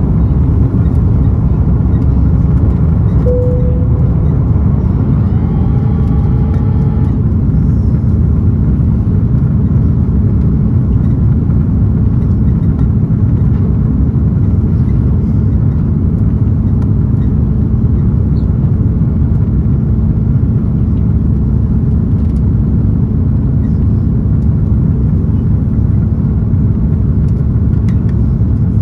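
Steady low rumble inside the cabin of an Airbus A330-200 on approach, with landing gear and flaps extended: airflow noise and its Pratt & Whitney PW4168A engines, with a steady hum under it. A short tone sounds about three seconds in, and a brief ringing tone a few seconds later.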